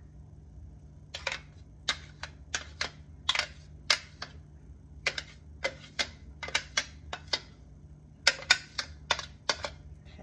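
Metal spoon clicking and tapping against the plastic rim of a Magic Bullet blender cup as thick batter is scraped out, in irregular runs of sharp clicks over a faint low hum.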